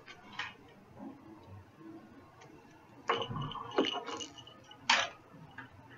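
Cat playing with toys on a tabletop: scattered light clicks and rustles as it paws and bites a burlap catnip bag among plastic and fabric toys, busiest about three to four seconds in, with one sharp click about five seconds in.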